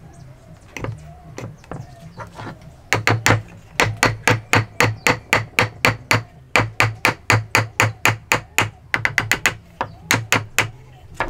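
Hammer tapping a hand-cut hardwood timber joint to drive its pieces together: a few light knocks, then about three seconds in a quick, even run of sharp strikes, about four a second, with a short pause near the end.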